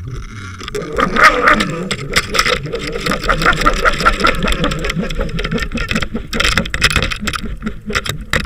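Muffled underwater noise picked up by a camera on a fishing line: a dense clatter of knocks and rattles over a low rumble, starting about a second in.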